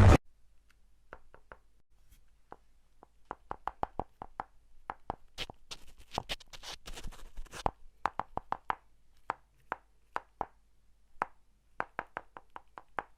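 A quiet series of short, sharp clicks and taps at an uneven pace, several a second at times, thickening into a busier clattering stretch in the middle.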